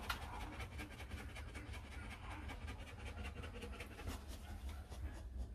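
Rottweiler bitch panting rapidly and evenly while her newborn litter nurses; the breeder says the heat lamp keeps the mother a bit hot.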